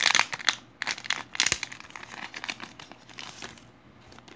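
Plastic trading-card pack wrapper crinkling and cards rustling as they are handled, busiest in the first second and a half with a light tap, then thinning out and fading.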